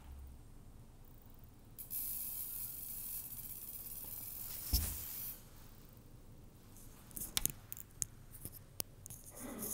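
White-noise hiss from a sound-art installation's speaker, starting suddenly about two seconds in and cutting off after about three and a half seconds, with a thump near its end. Several sharp clicks follow.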